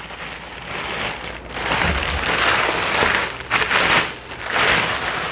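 Clear plastic bag crinkling and rustling in several surges as it is pulled off a boxed machine.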